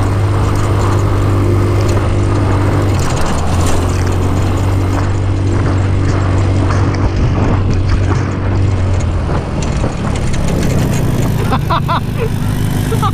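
Off-road go-kart's engine running under way on a dirt trail, its note shifting a few times. It eases off about eight seconds in as the kart slows.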